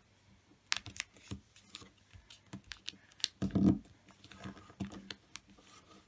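Square origami paper being folded and creased by hand: scattered crackles and small taps of the paper and fingertips against the table, with a louder bump and rustle about three and a half seconds in.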